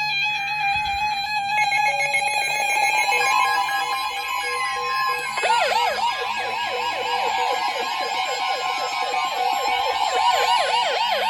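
NOAA weather radio alert going off for a new warning. It opens with short bursts of warbling digital header tones, then the steady 1050 Hz weather radio alert tone comes in about three seconds in. From about halfway a fast siren-like warble, about four cycles a second, joins it: the receivers' own alarms.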